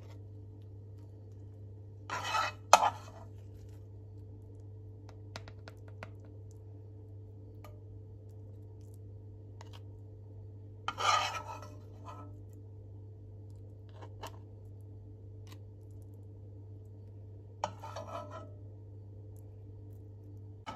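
A metal spoon scraping scrambled egg out of a nonstick frying pan and pressing it onto a cracker. It comes as three short scrapes, about two seconds in, about eleven seconds in and near the end, the first ending in a sharp click, with light taps between.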